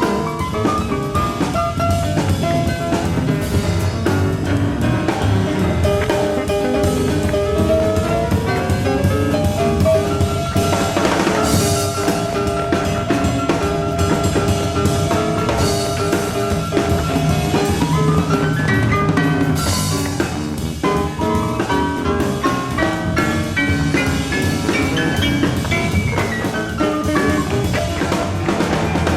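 Live jazz piano trio playing: piano with acoustic bass and a drum kit, the cymbals crashing twice, about 11 and 20 seconds in. Heard as an FM radio broadcast recorded on cassette tape.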